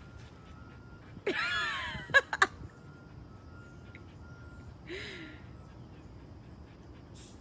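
A woman laughing in a high-pitched burst just over a second in, ending in two sharp short bursts, then a brief softer laugh a few seconds later.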